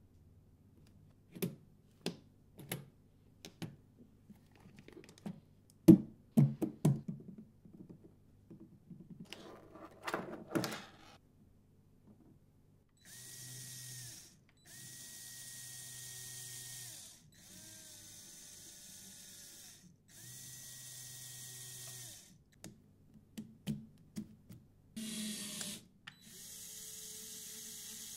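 A run of plastic clicks and knocks from the Lego Technic car, then its small electric motors running in several separate bursts of about two seconds each, each a steady whine, with one burst falling in pitch partway.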